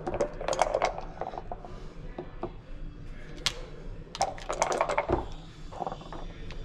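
Clicking and clatter of backgammon play: hard checkers picked up and stacked in the tray, then dice rattled in a cup and thrown onto the board, a flurry of clicks about four seconds in.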